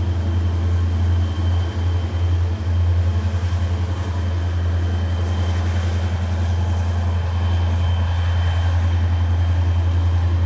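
EMD SD40-2 diesel-electric locomotive, with its turbocharged 16-cylinder two-stroke 645 engine, working as a rear helper shoving a freight train. It gives a steady, heavy low engine drone.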